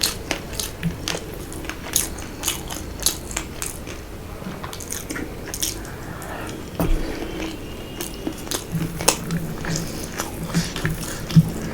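A person biting and chewing food close to the microphone, with many quick mouth clicks and a louder knock about seven seconds in.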